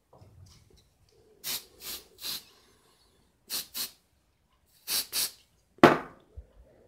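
Short hissing puffs of air over freshly superglued metal strips on a small motor: three quick puffs, then two, then two more, and a louder, fuller one near the end.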